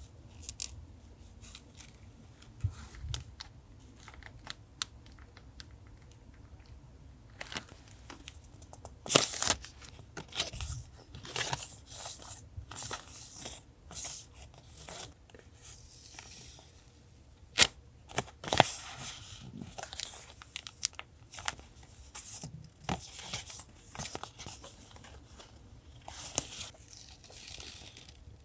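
Paper being handled for a journal collage: rustling, crinkling and tearing, with light taps and clicks. It stays sparse for the first several seconds and gets busier from about eight seconds in.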